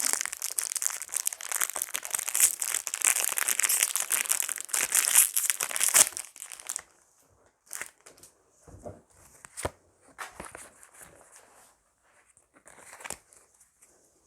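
Foil booster-pack wrapper crinkling and being torn open for about seven seconds, then much quieter, with a few light taps and rustles as the cards are handled.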